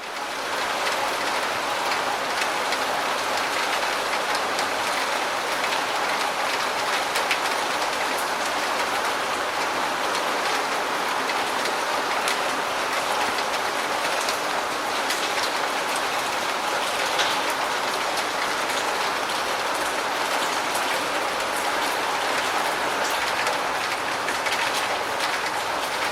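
Steady rainfall: an even hiss with scattered sharper drop ticks, fading in at the start and then holding level.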